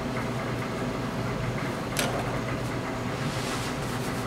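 Steady machine hum with a single sharp click about two seconds in.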